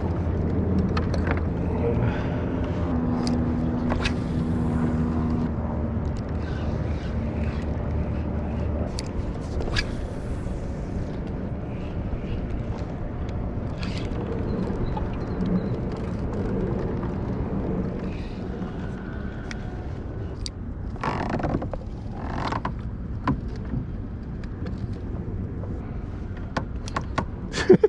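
A kayak under way on open water, with a steady rush of water and wind. A low engine hum with several steady tones is heard for the first nine seconds or so and then fades. There are a few light knocks and clicks from the hull and gear.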